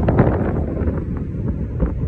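Wind buffeting a phone's microphone: a loud, gusty rumble that thins out a little about a second in.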